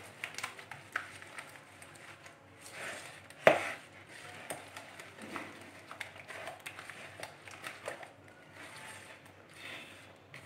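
A spoon stirring a thick yogurt and spice marinade in a bowl: soft scrapes and light clicks, with one louder knock about three and a half seconds in.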